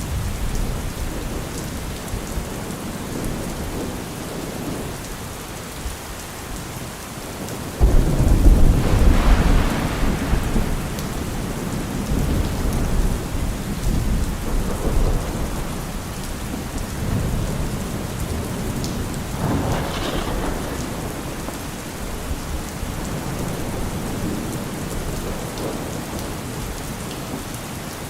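Steady rain falling, with thunder: a sudden loud clap about a third of the way in that rumbles on for a few seconds, and a second, softer roll of thunder a little past the middle.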